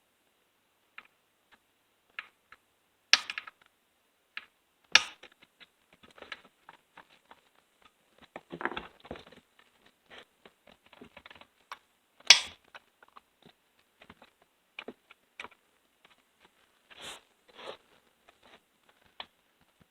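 Scattered light clicks, taps and scrapes of small metal and plastic chainsaw chain-brake parts and a hand tool being worked into place. A few sharper clicks stand out, the sharpest about twelve seconds in.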